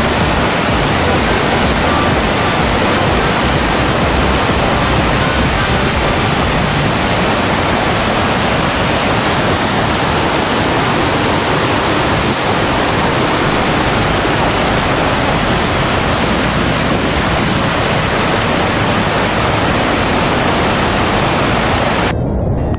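Steady rushing of whitewater from river falls and rapids, a loud even hiss of water pouring over rock, unbroken throughout.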